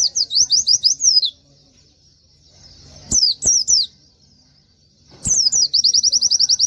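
White-eye (pleci) singing in three loud, high, rapid trills of quick downward-sweeping notes: one in the first second or so, a short one about three seconds in, and a longer, faster trill of about a dozen notes near the end.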